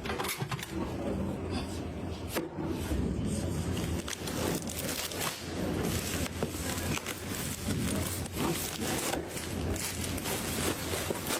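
Irregular clicks and taps over continual rubbing and scraping of hard objects.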